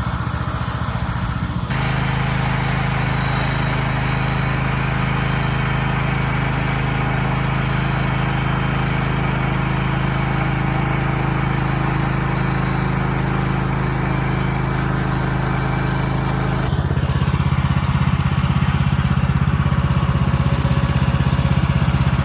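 Woodland Mills HM130Max bandsaw mill's gasoline engine running at steady speed while the band blade cuts through a log. A steady hiss joins the engine note about two seconds in and drops away about seventeen seconds in, when the engine note shifts lower and gets a little louder.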